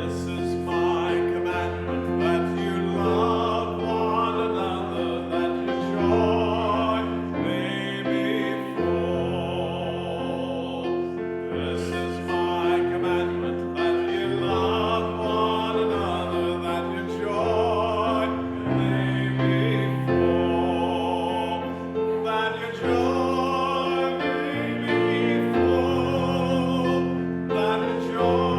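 Piano accompanying slow singing of a church chorus, with the voices wavering in vibrato.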